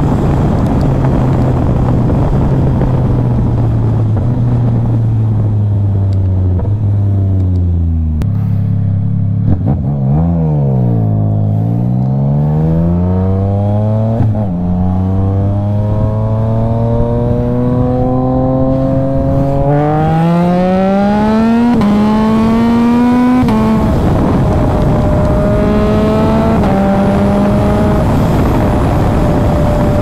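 Yamaha MT-09 inline-three engine heard from the rider's seat over wind rush. The engine note falls for about ten seconds as the bike slows. It then climbs steadily as the bike accelerates, with three quick upshifts in a row where the pitch drops, and settles into a steady cruise with one more shift near the end.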